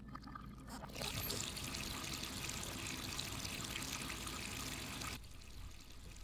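Water from a kitchen faucet pouring into a stainless steel sink: a steady splashing hiss that starts about a second in and cuts off suddenly near the end.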